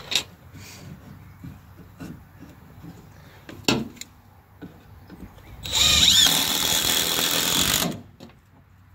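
A few light knocks as the wooden brace is positioned, then a power drill driving a screw into the lumber for about two seconds: the whine rises as it spins up, then stops.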